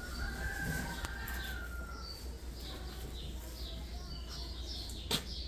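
Small birds chirping: a long whistled note over the first two seconds, then a run of short, high, repeated chirps, over a steady low hum. A single sharp click comes near the end.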